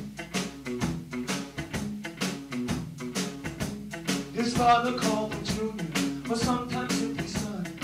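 Live rock band recording: drums keep a steady beat under bass and guitar, and a voice comes in singing about halfway through.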